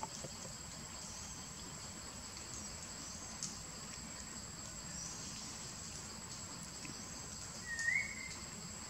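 Steady high-pitched drone of insects such as crickets or cicadas. A brief rising chirp, the loudest sound, comes near the end.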